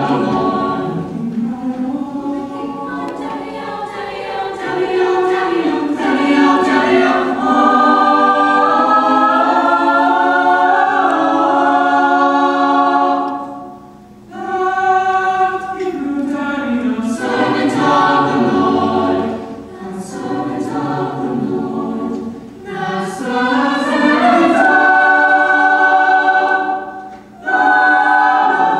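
Mixed choir of teenage voices singing sustained chords in parts, with two brief breaks between phrases, about halfway through and near the end.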